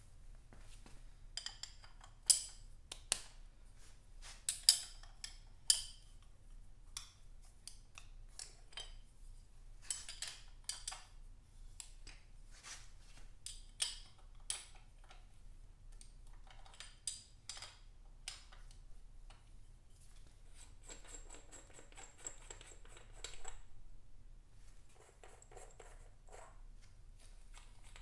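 Irregular sharp metallic clicks and clinks as aluminium caps on a Vincent V-twin's cylinder heads are unscrewed and lifted off by hand. The loudest clicks come in the first few seconds, and there is a short rasping scrape about three quarters of the way through.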